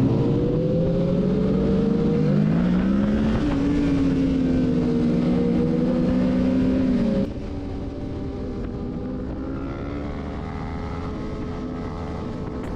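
Motorcycle engine running at road speed over wind rush; the engine pitch climbs about two seconds in and then holds. About seven seconds in the sound drops abruptly to a quieter engine note that slowly rises in pitch.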